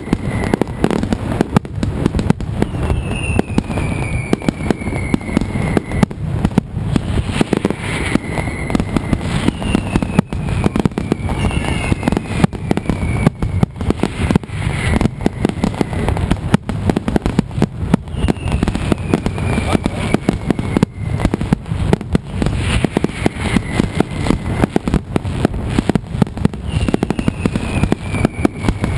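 Mascletà firecrackers going off in a dense, continuous barrage of rapid bangs, loud throughout. High falling whistles cut through it about every two seconds.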